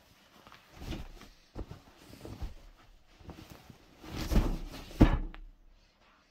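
A cotton sheet rustling and flapping as it is spread and smoothed over a cot mattress, in irregular bursts with light knocks; the loudest stretch comes about four seconds in, ending in a sharp knock just after five seconds.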